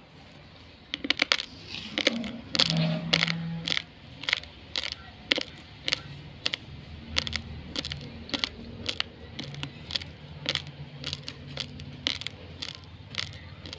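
Uncooked rice grains crunched between the teeth: sharp crunches, dense and loudest in the first few seconds, then about one or two a second.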